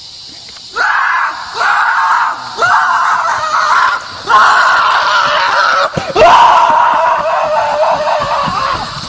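A voice screaming loudly in a string of about five long, harsh cries with short gaps between them. The last cry is the longest and trails off near the end.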